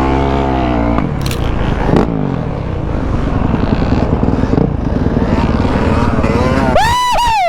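Dirt bike engine running and revving, holding a steady high pitch for about a second before dropping into a rough, choppy running sound. Near the end comes a brief high-pitched sound that rises and falls twice.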